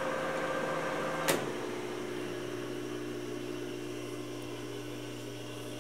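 Emco Maximat V13 metal lathe running with a steady hum. A sharp click comes just over a second in; the hum then changes and slowly fades as the spindle runs down.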